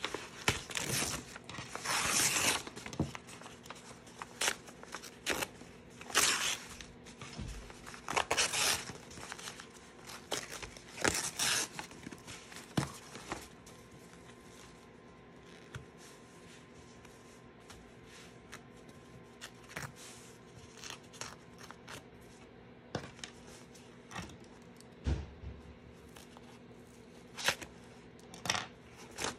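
Tearaway embroidery stabilizer being ripped off around machine-embroidered stitching: several short tearing rips through the first half, then mostly faint rustling and crinkling of the paper-like backing.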